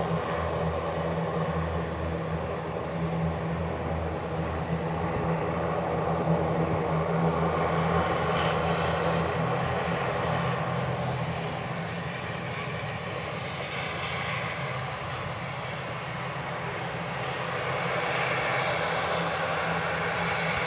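ATR 72-600's twin turboprop engines running: a steady propeller drone with a low hum, easing off a little past the middle and building again near the end.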